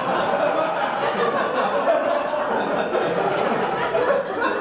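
Audience laughing at a punchline, a sustained crowd laugh with chatter mixed in.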